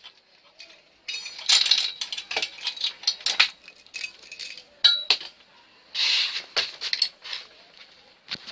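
Small steel bicycle bottom-bracket parts (caged ball bearings and bearing cups) clinking and rattling as they are handled, in several short irregular clatters with a sharp click about five seconds in.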